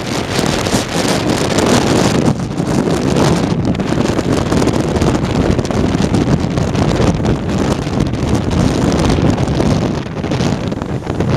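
Strong typhoon wind buffeting the microphone with a heavy rumble, over high waves surging and breaking against the harbour quay.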